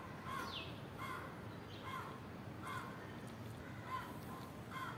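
A crow cawing, short harsh calls repeated about once a second, faint over steady outdoor background noise.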